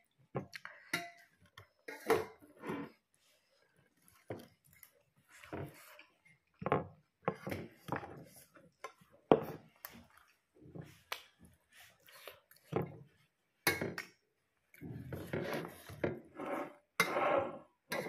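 Close-up eating sounds: a person chewing meat and smacking her lips between bites, with short clicks and taps from fingers and food on a plate, coming irregularly with brief pauses.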